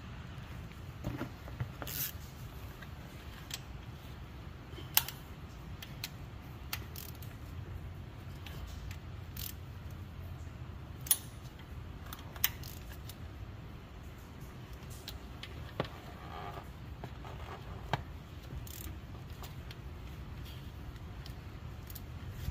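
Hand tools clicking and tapping against metal engine parts, in single sharp clicks a few seconds apart, as a ratchet and extension work the bolts of a newly fitted water pump. A low steady hum runs underneath.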